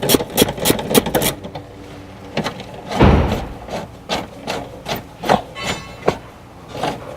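A hand ratchet clicking rapidly as a seat belt mounting bolt is driven home, then slower clicks with a dull knock about three seconds in.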